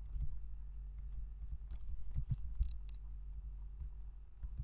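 A few scattered clicks of computer keys, clustered about two seconds in, over a steady low hum.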